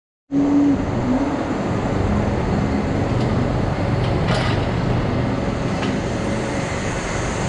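Barn ventilation fans running with a steady hum, starting suddenly a moment in, with one short knock a little past the middle.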